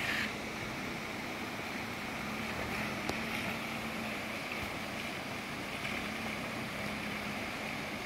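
River water rushing over flat rock at the lip of a waterfall, a steady even rush.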